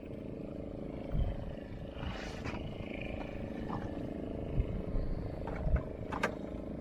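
Fishing boat's engine running steadily, with a few low thumps and a sharp click or two over it.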